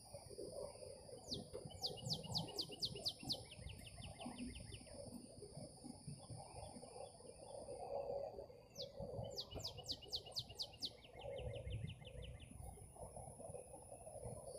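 A songbird sings twice, about seven seconds apart. Each song opens with a downslurred note, then a quick run of high repeated notes that drops into a lower, faster trill. Insects keep up a steady high drone behind it, over a low rumble of background noise.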